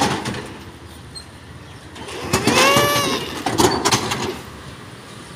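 Metal roller shutter of a shopfront being pushed up, rattling along its guides, with a short squeal from the slats about halfway through.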